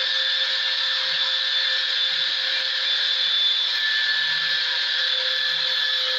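Electric belt sander running steadily and grinding the paint off a steel hatchet head, a constant motor tone over a hissing abrasive grind.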